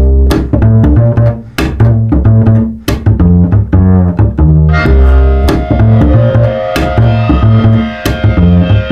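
Background music with a strong, repeating low bass line and sharp percussive hits; higher instruments join about five seconds in.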